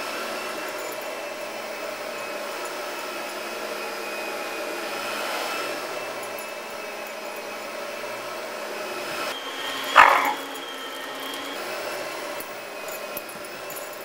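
Oreck upright vacuum cleaner running steadily while a border collie barks once, sharp and loud, about ten seconds in.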